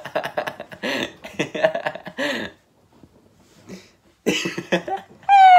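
A man and a woman laughing hard in choppy, cough-like bursts, breaking off for a second or so midway before laughing again.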